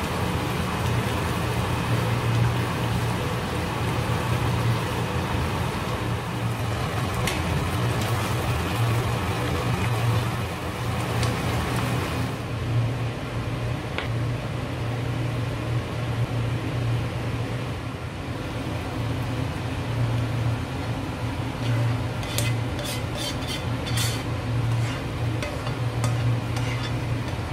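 Sweet-and-sour chicken sauce bubbling in a frying pan as a spatula stirs it, over a steady low hum. The stirring noise fades about twelve seconds in, and a few light clicks and taps of dishes follow near the end.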